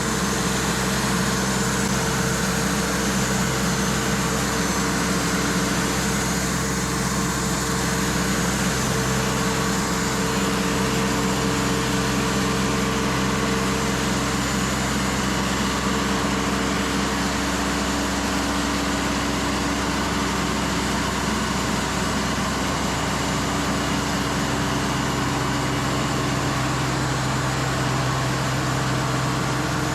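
Engine of a Cook's AC-36 band sawmill running steadily, with slight shifts in pitch about a third of the way in and again near the end.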